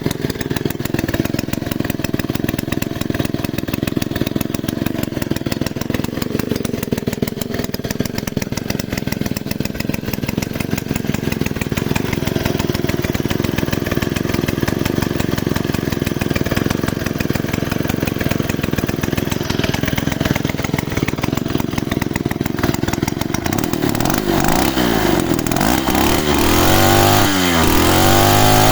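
Druzhba-4A two-stroke chainsaw engine idling steadily, then revved up and down several times in the last few seconds.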